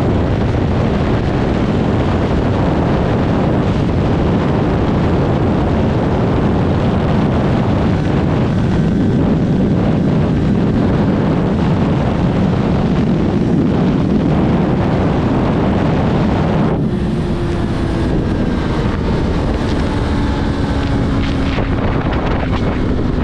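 Yamaha R3 parallel-twin engine, on its stock exhaust, running under way with heavy wind noise on the microphone. About 17 s in the rush eases and the engine note drops slowly and steadily as the bike slows.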